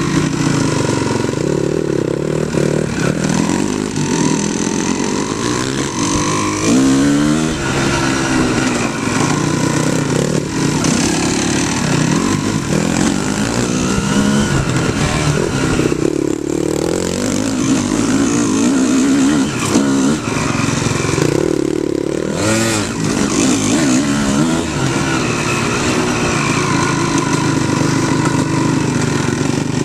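Off-road dirt bike engines running, revving up and easing off again and again without stopping.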